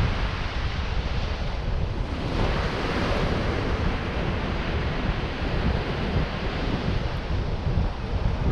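Surf breaking and washing up a sandy beach, with wind buffeting the microphone. The wash swells louder about two and a half seconds in.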